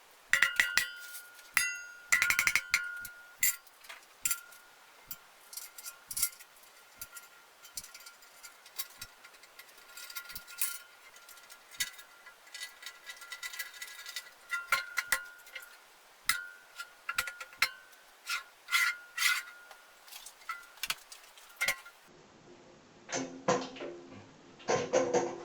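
Irregular metallic clinks and taps, some ringing briefly, from metal parts and tools being handled. A few louder, duller knocks come near the end.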